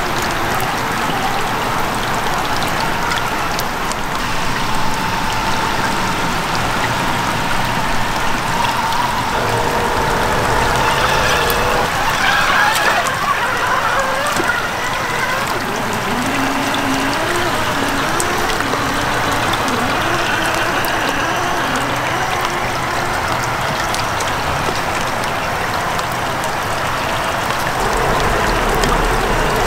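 Rain falling and stream water running, with the whine of a Traxxas TRX-4 Sport RC crawler's electric motor and gear drivetrain, its pitch shifting up and down as the throttle changes.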